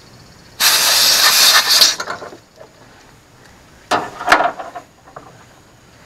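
Refrigerant gas hissing loudly out of a car air-conditioning service port as a manifold-gauge quick coupler is pulled off, a spurt of a little over a second just after the start. About four seconds in come two short, sharp puffs.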